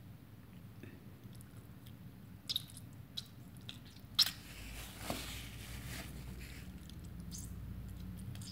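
A soft tomato squeezed by hand over a bowl: faint wet squishing with scattered small clicks, a sharper click about four seconds in, and juice dripping into the bowl.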